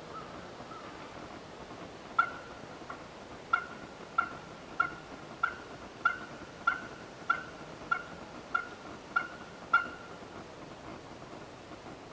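Turkey calling: a run of about a dozen short, evenly spaced notes, about one and a half a second, starting about two seconds in and stopping near ten seconds, with a few faint notes at the very start.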